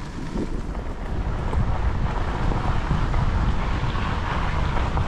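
Wind rushing over the microphone of a camera on a moving e-bike, rising over the first two seconds and then holding steady.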